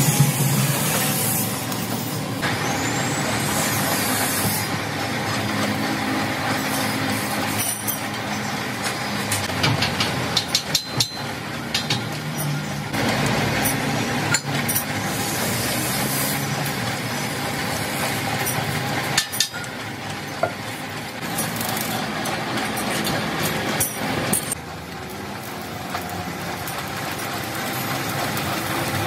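Metalwork on a steel frame: steady hissing, crackling workshop noise with sharp hammer strikes on the steel in the middle, and stick arc welding near the end.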